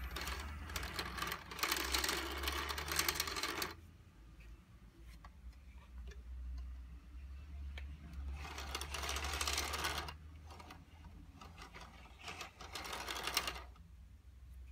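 Plastic toy gears meshing and rattling with rapid clicking as a hand turns the handle on the top gear and the whole gear train spins, in three spells with quieter pauses between.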